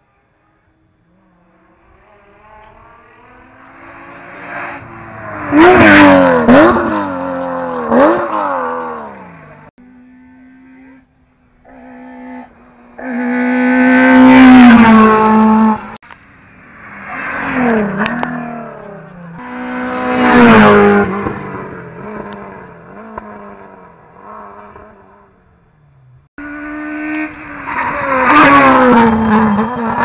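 Rally cars passing one after another at speed, engines revving high and dropping through gear changes as each goes by; about four passes, loud as each car reaches the spot, with sudden breaks between some of them.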